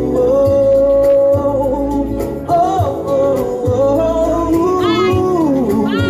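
Live band music with a steady drum beat under long sustained notes. A male singer holds long wordless notes over it, with rising vocal runs near the end.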